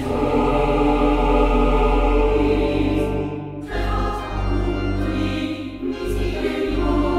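Slow choral music: a choir holding long chords over a steady low bass.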